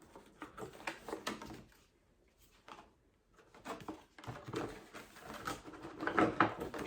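Small handling noises: scattered soft clicks, knocks and rustles as a wine glass and its packaging are picked over, with a brief quiet spell about two seconds in.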